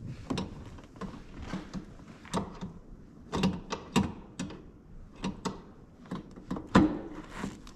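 Irregular clicks and knocks with rustling, from a wrench and hands fishing behind a pickup truck's rear seat back for the seat's factory release pin. One sharper knock near the end.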